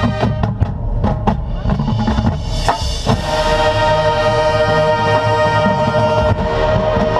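Drum and bugle corps playing: a run of sharp drum-line hits over the first three seconds, then the brass holds a loud chord.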